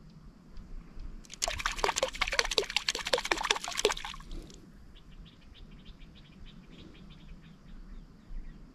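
A quick patter of many small splashes on the water's surface, lasting about three seconds from roughly a second and a half in, then a few faint ticks of water.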